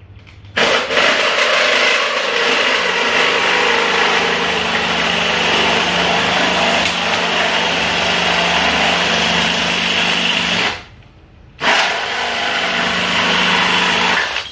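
Cordless drill driving a reciprocating saw attachment, its blade sawing through a piece of copper: a steady motor hum under a harsh sawing noise, stopping for about a second near the end and then starting again. The stock blade is very dull and takes a lot of effort to get through the copper.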